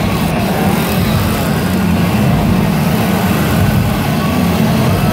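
Two-stroke chainsaw engines running loud and steady.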